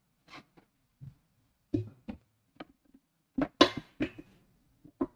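Irregular clicks and light knocks of handling at a desk, about ten of them, the loudest a little past halfway.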